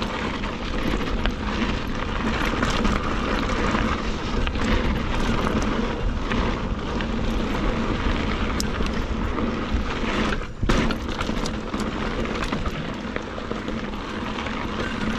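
Mountain bike riding over loose dirt and gravel: steady wind and tyre noise on the microphone with frequent small clicks and rattles from the bike, a brief lull and then a knock about ten and a half seconds in.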